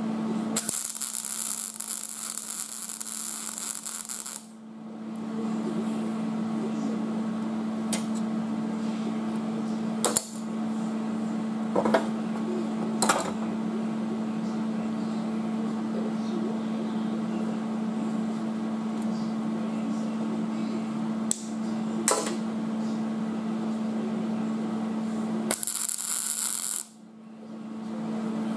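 MIG welder arc crackling in two bursts, a long one of about four seconds near the start and a short one near the end, as welds are laid on the steel inner rocker panel. A few sharp metal clicks come between them, over a steady electrical hum.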